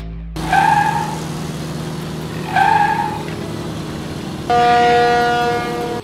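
Truck sound effect: an engine running steadily, with two short horn honks about two seconds apart, then a longer, fuller horn blast lasting about a second and a half near the end.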